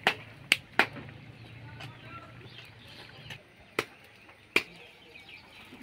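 Wood fire crackling: five sharp pops at irregular intervals, three close together in the first second and two more about four seconds in. Birds chirp faintly in the background.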